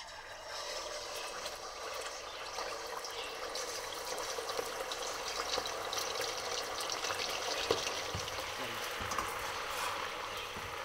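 Chicken pieces deep-frying in hot oil in a stainless pot. The sizzling and crackling starts abruptly as the chicken goes into the oil and keeps up steadily.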